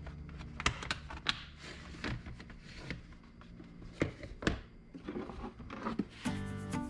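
Hard plastic tool-case latches clicking shut, then the case knocking and sliding on a wooden workbench with scattered sharp clicks and rubbing. Background music comes in near the end.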